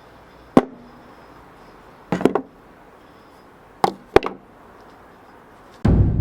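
A few sharp wooden knocks: one, then a quick double about two seconds in, then two more close together near four seconds. Just before the end a deep drum-like boom sets in and rings on.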